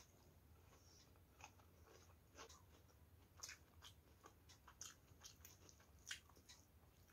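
Faint chewing: soft, irregular mouth clicks and smacks, with one sharper click about six seconds in.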